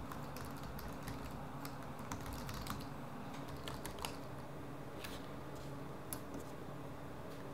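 Typing on a Dell laptop keyboard: a run of quick, irregular key clicks.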